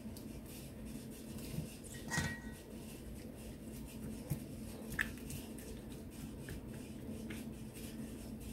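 A spatula scraping and spreading a thick ground-beef enchilada sauce over tortillas in a ceramic baking dish: soft, faint scraping with a light knock against the dish about two seconds in and a small click about five seconds in.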